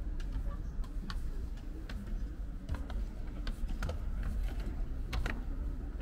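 Footsteps climbing a staircase: light, irregular clicks over a steady low rumble.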